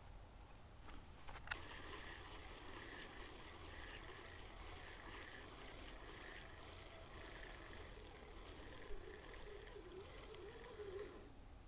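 Faint outdoor ambience with a few soft clicks and rustles from the camera being handled.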